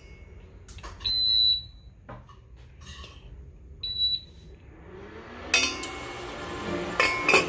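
Electronic beeps from a kitchen appliance's controls: a half-second beep about a second in and a short one about three seconds later. Near the end come clattering and sharp metal knocks of cookware being handled.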